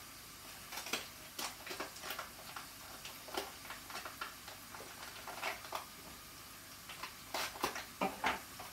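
Hot oil crackling with scattered, irregular pops as yam (ol) koftas and chopped onion fry in pans, the koftas nearly done and browning lightly.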